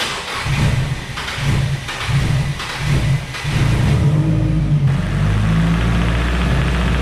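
Nissan SR20 four-cylinder engine running, uneven for the first few seconds, then settling into a steady idle about four seconds in. The engine has a rod knock that the owner traces to the bottom end.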